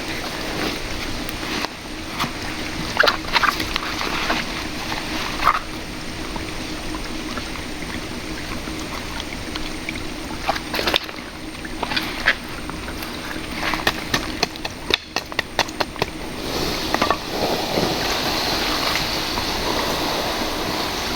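Shallow river water flowing steadily, with scattered sharp knocks and clicks and a quick run of clicks about fifteen seconds in. Near the end the water sound grows louder, like splashing.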